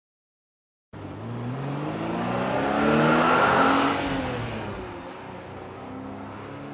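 Car engine accelerating, starting suddenly about a second in, rising in pitch to its loudest around the middle, then falling away and fading, with another quieter engine note near the end.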